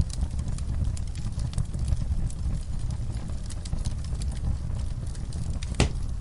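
Wood fire crackling: scattered sharp snaps and pops over a steady low rumble, with one louder pop near the end.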